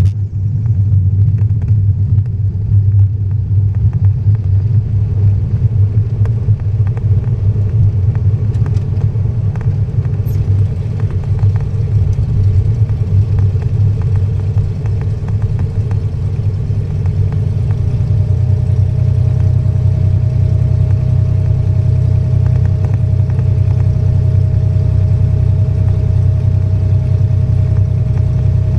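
Cessna 210's six-cylinder piston engine and propeller running steadily as the plane taxis on a dirt strip, heard from inside the cockpit as a loud, low drone. It is more uneven over the first half, and a faint steady whine joins about two-thirds of the way in.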